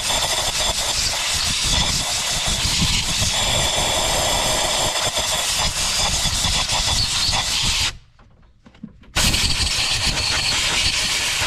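Compressed air hissing as it is blown into a spark plug well to clear out debris before the plug is removed. One long blast cuts off about eight seconds in, and after a pause of about a second a second blast follows.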